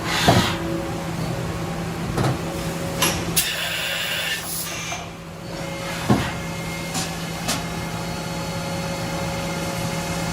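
OKK VM5-11 vertical machining center running, with a steady machine hum and several sharp mechanical clunks and clicks. About three and a half seconds in there is a hiss lasting about a second and a half.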